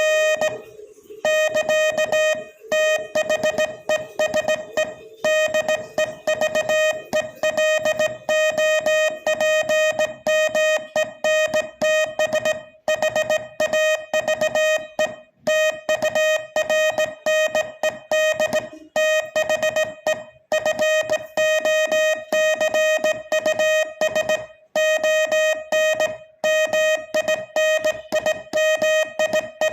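Morse code sent as a single tone of about 600 Hz, keyed on and off rapidly in dots and dashes at slightly over 20 words per minute, with short breaks every few seconds.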